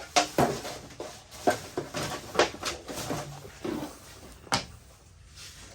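Handling noise between cut tests: a string of sharp clicks and knocks as objects and the folding knife are moved about, about ten in all, with a quieter stretch near the end.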